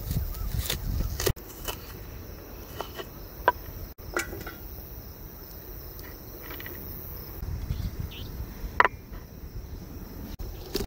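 Knife chopping a red onion on a bamboo cutting board, giving a handful of sharp, irregularly spaced knocks, with a louder knock near the end. Crickets chirp in the background.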